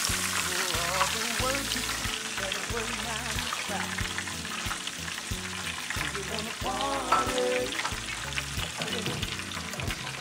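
Hot oil sizzling steadily in a deep fryer as French fries cook, with a song playing in the background.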